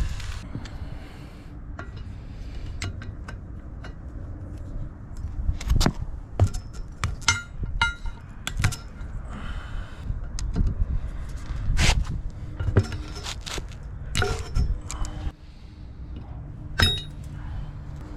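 Hand tools clinking and knocking against metal while working on a wheel's valve stem: irregular, scattered strikes, a few of them ringing briefly.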